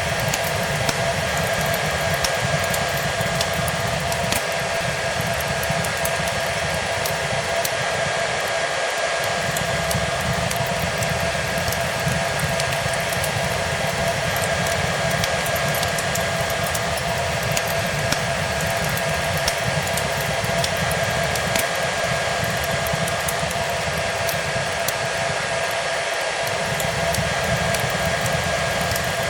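Hair dryer running steadily: a constant rush of blown air with a steady motor whine. Small crackles and pops from a fireplace fire are scattered through it.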